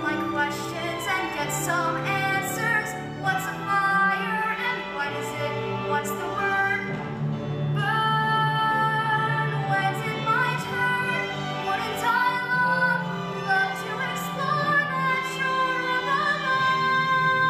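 A young female voice singing a solo ballad over an instrumental accompaniment, holding long notes in the second half.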